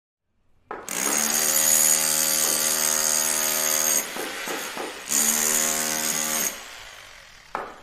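Power tool motor running with a steady high whine, in two runs: about three seconds, a short break, then about a second and a half, before trailing off.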